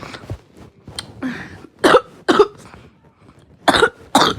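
A child coughing: short, sharp coughs in two pairs, the first about two seconds in and the second near the end.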